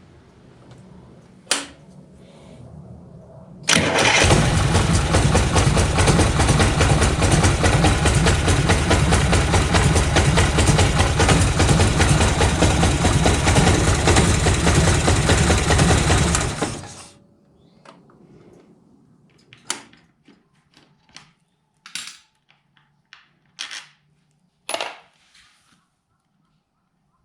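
Harley-Davidson Shovelhead FLH V-twin engine starting suddenly about four seconds in, running steadily for about thirteen seconds, then shut off. This is the bike whose primary drive makes an abnormal noise from a worn compensator. Scattered clicks and knocks follow.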